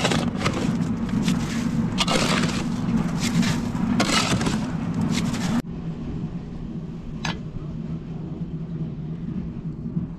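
Steel shovel scraping and chopping through wet cement mortar in a mixing trough, a stroke about every second. After about five and a half seconds it cuts off to a quieter background with one sharp click.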